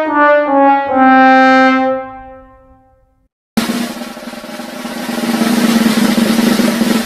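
Sad-trombone comedy sound effect: four falling brass notes, the last one held and fading out. After a short gap a snare drum roll starts and grows louder.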